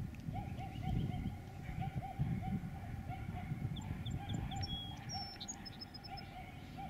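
Birds calling in the background: a repeating series of short arched notes, about two a second, with scattered higher chirps and whistles, over a low wind rumble.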